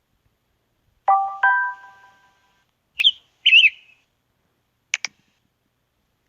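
Samsung Galaxy S7 notification tones played one after another with silence between: a two-note chime that rings out about a second in, a short high chirp followed by a wavering chirp near the middle, and two quick high pips near the end.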